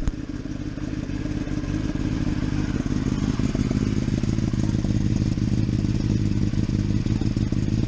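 Kawasaki ZX10R's inline-four engine idling steadily through a freshly fitted LeoVince Factory S slip-on exhaust, just after starting, growing a little louder over the first couple of seconds.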